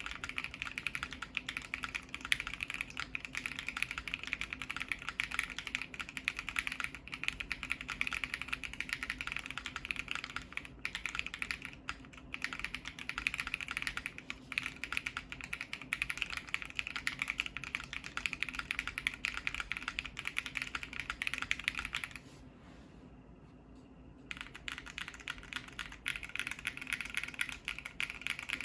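Continuous fast typing on a Bakeneko60 mechanical keyboard with lubed Ashkeebs Auralite switches on an FR4 plate, with case foam and Holee-modded stabilizers. Dense keystroke clacks stop for about two seconds roughly three quarters of the way through, then resume.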